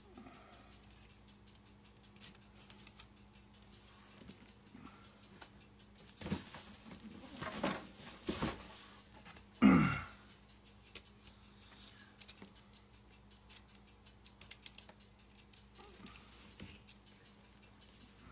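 Cardboard model-kit box being opened and handled: scattered light clicks and taps, a stretch of scraping and rustling partway through, and one loud knock about ten seconds in.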